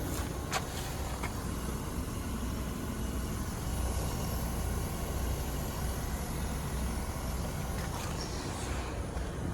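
Outdoor units of a Carrier Greenspeed heat pump and a Carrier mini split running together: a steady fan whoosh over a constant low compressor hum, with a couple of faint clicks about half a second in.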